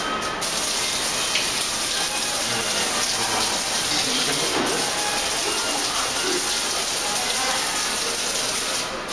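Steady splashing hiss of water drops from a pattern-drawing water-curtain fountain falling onto a bed of pebbles.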